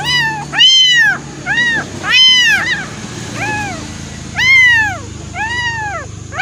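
Young kitten meowing repeatedly, about nine short high-pitched mews, each rising then falling in pitch.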